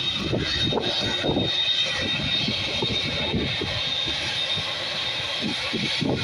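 Boeing 787 Dreamliner's jet engines running at low power as it taxis after landing: a steady high whine over an uneven low rumble.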